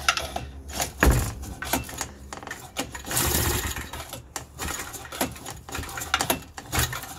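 Irregular clicks, knocks and clatter of metal parts on a small two-stroke engine being handled on a workbench, with a longer rush of noise a little past the middle.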